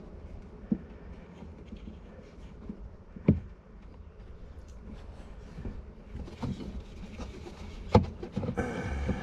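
Handling noise from hands working inside the plastic heater box under a truck's dashboard: scattered light knocks and scrapes, two sharper knocks about three seconds in and near the end, and a short rustle at the very end.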